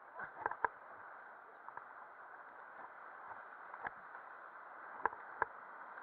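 Rushing river water during rafting, a steady wash broken by a few sharp knocks.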